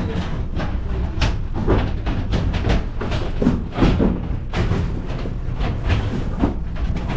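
Irregular knocks and clatter of plastic crates and boxes of provisions being handled and set onto metal shelving, over a steady low rumble.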